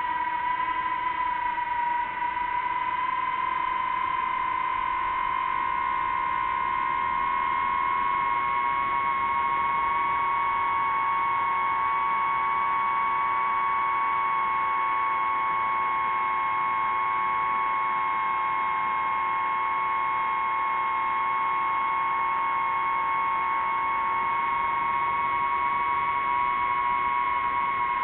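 Steady high-pitched motor whine of an aircraft in flight, with overtones that drift slightly in pitch over an even hiss.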